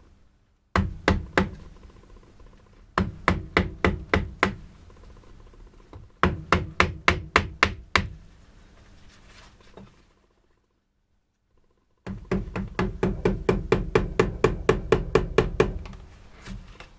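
A mallet striking a chisel into weeping-willow wood in runs of quick blows, the last and longest run at about five blows a second.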